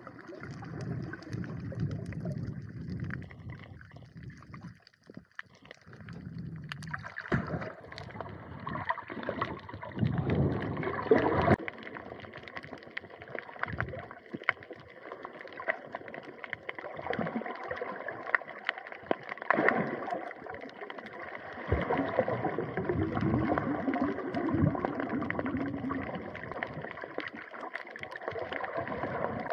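Water sloshing and gurgling around the camera, uneven in level, with many short clicks and crackles scattered through it.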